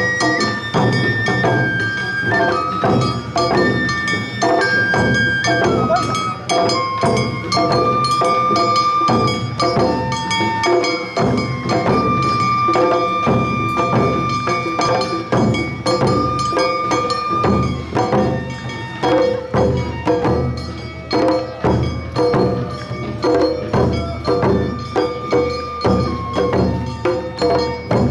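Awa Odori narimono band playing: a bamboo flute carries a held-note melody over a steady two-beat pulse of drums and the clanging kane gong.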